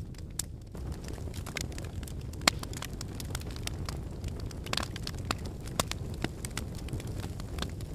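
Wood fire in a fireplace burning with a steady low rumble, crackling with irregular snaps and pops, a sharper snap about two and a half seconds in.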